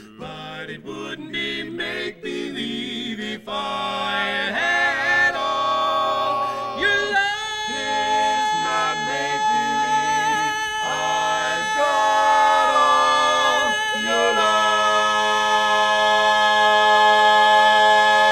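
Male barbershop quartet singing a cappella in close four-part harmony, the closing phrase of the song, growing louder into a long held final chord from about fourteen seconds in.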